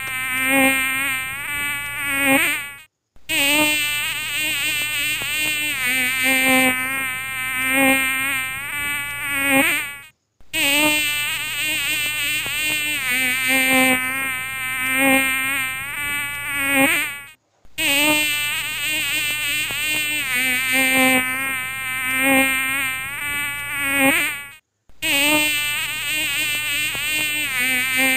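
Mosquito buzzing, its whine wavering up and down in pitch, repeated over and over. It cuts out for a moment about every seven seconds.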